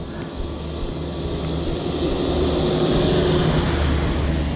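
A minibus approaching on a wet road and passing close by, its engine and tyre hiss getting louder to a peak about three seconds in.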